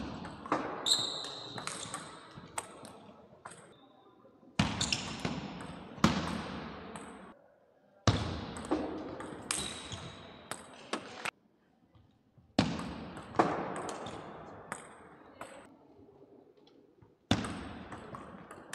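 Table tennis ball being struck back and forth between rackets and table in several short rallies, each a quick run of sharp clicks with brief pauses between points. The clicks echo in the hall.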